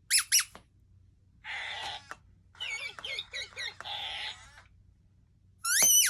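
Electronic sound effects from Squeakee balloon-dog toys: two quick rising balloon-rubber squeaks, a breathy hiss, a run of short warbling chirpy yips, another hiss, then one loud rising squeak near the end.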